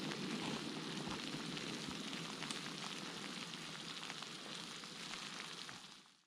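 Water at a rolling boil in a Jetboil stove's cup: a steady bubbling hiss with many small crackles. It fades out near the end.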